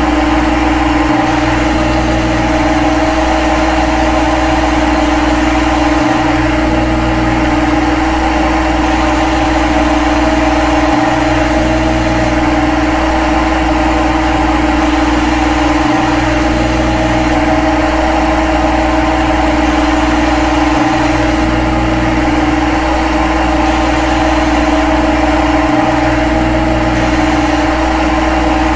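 Simulated CNC lathe machining sound from a lathe simulator program, with the spindle turning while the tool cuts: a steady mechanical hum with a clear pitch. Its low rumble drops out briefly about every five seconds.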